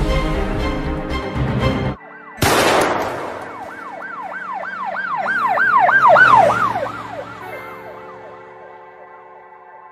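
Music cuts off about two seconds in, a loud noisy hit follows, and then a siren yelps in quick rising-and-falling sweeps, about three a second, swelling and then fading away over a low sustained drone.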